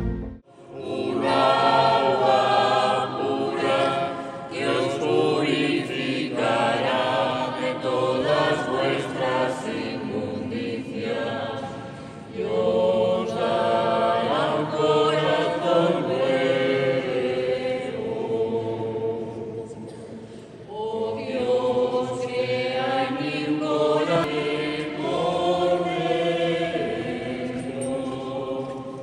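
A church congregation singing a hymn together, with short breaks between phrases about 12 and 20 seconds in.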